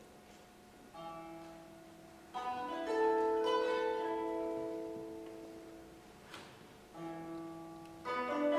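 Koto being plucked: quick rising runs of notes that ring and fade, in four groups, the loudest about two and a half seconds in and again near the end.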